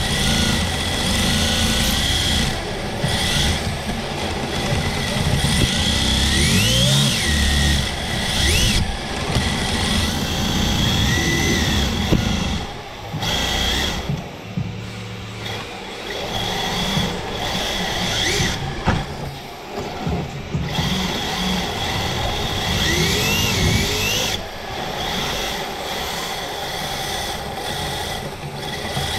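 Redcat RDS rear-wheel-drive RC drift car heard from its own onboard camera, its electric motor whining up in pitch again and again under throttle over a low rumble of chassis and tyres on the concrete. The sound drops away briefly a few times as the throttle comes off.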